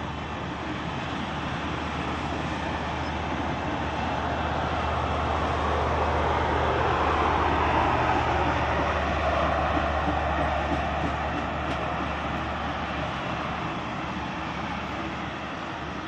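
Union Pacific passenger cars rolling past on the rails, a steady rush of wheels on track over a low steady hum. The sound swells to its loudest about halfway through and then slowly fades.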